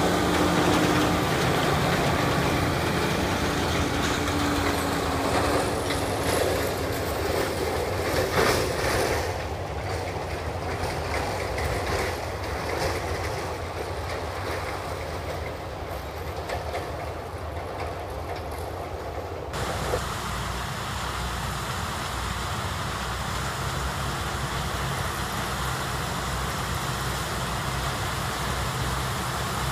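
New Holland TM190 tractor engine running as it tows a two-axle trailer close by, growing quieter as it drives away. After a cut about two-thirds of the way in, a steady, lower drone of the Claas Lexion 760 TerraTrac combine and tractor working in the distance.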